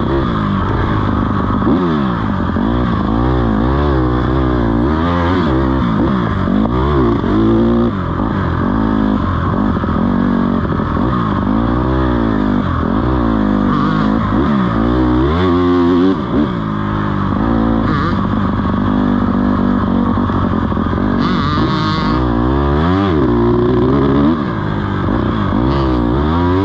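Dirt bike engine being ridden on a trail, its pitch climbing and falling over and over as the throttle is opened and closed.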